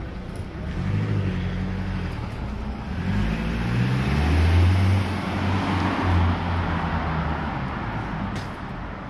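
A car's engine running as it moves slowly along the street close by, growing louder to about halfway through and then fading, over general city traffic noise.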